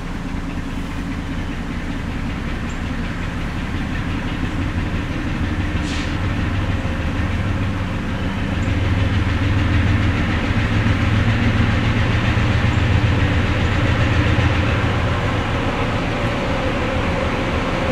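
Freight train's diesel locomotives, a GE B23-7 and an EMD GP9, running as the train approaches. The steady low engine drone grows louder through the first half and stays strong.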